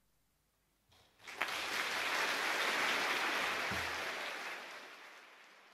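Audience applause breaking out about a second in, once the piece's last soft chord has died away, then fading out near the end.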